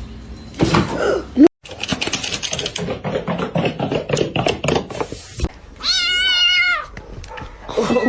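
A domestic cat meowing: one wavering meow about six seconds in, and another beginning near the end. Before the first meow comes a loud short noise, then a few seconds of dense rapid clicking and rustling.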